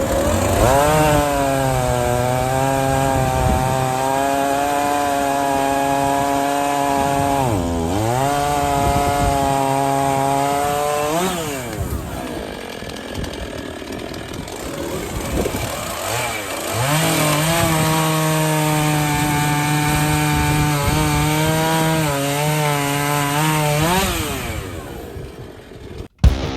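Gas chainsaw bucking firewood logs: the engine revs up and holds high through two long cuts, with brief drops and blips of the throttle between them, then winds down near the end.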